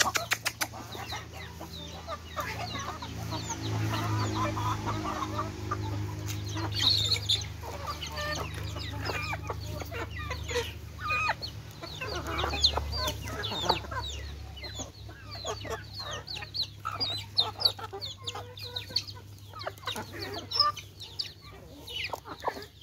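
A flock of hens clucking as they feed, with many short sharp taps of pecking at food on the ground, over a steady low hum.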